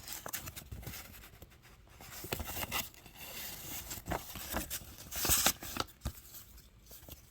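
Paper rustling and crinkling as old greeting cards and envelopes are handled, with scattered small clicks and a louder rustle about five seconds in.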